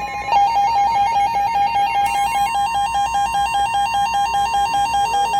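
Electronic emergency alert tone: a rapid warble between two pitches with a steady higher tone alongside.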